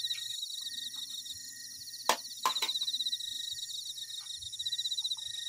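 Crickets trilling steadily in a rapid pulsing chorus. A sharp click about two seconds in, then two softer ones just after.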